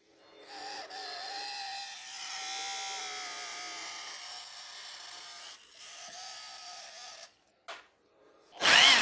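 Small electric motor whining steadily at an even pitch for about seven seconds, then stopping. After a short pause, a much louder, harsher motor burst starts near the end.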